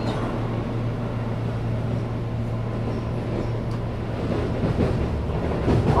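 Keihan limited express train standing at an underground platform: a steady low hum from the stopped train and station, with no change in pitch or level.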